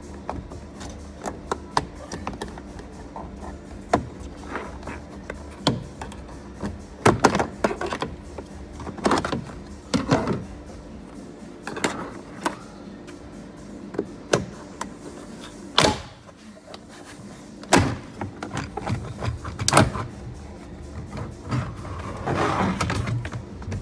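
Scattered knocks and thuds from the van's A-pillar trim panel being handled and pressed against the pillar, over music playing in the background.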